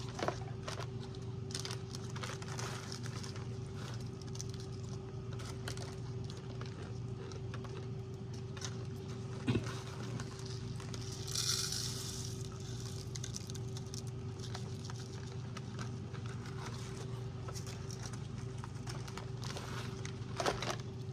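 Scattered light taps, clicks and rustles of small plastic snack packets and a DIY candy kit's tray being handled, over a steady low electrical hum. A brief hissing rustle comes about halfway through.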